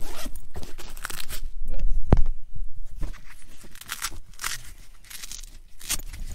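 Plastic food packaging being handled and torn open: a run of crinkling and crackling rustles, with a sharp snap about two seconds in.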